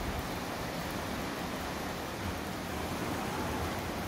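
Steady wind noise with distant surf.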